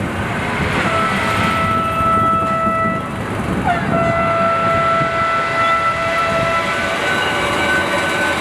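Electric passenger train running with a steady two-tone motor whine over a rolling rumble. The whine dips briefly in pitch a little under halfway through and shifts to a new pitch near the end.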